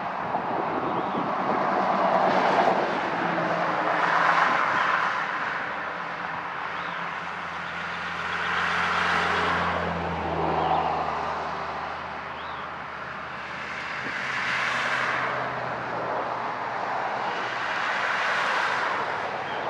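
Road traffic passing one vehicle after another on a two-lane road: tyre and engine noise swells and fades about five times. A low engine drone runs through the middle of the stretch.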